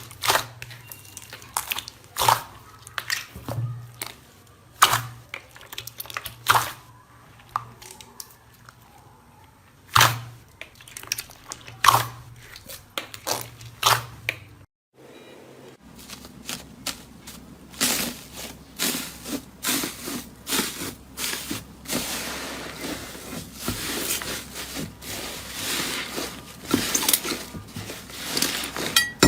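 Slime being squeezed and poked by hand, giving sharp crackling pops a second or two apart; after a short break about halfway through, a denser run of crackles and squishes.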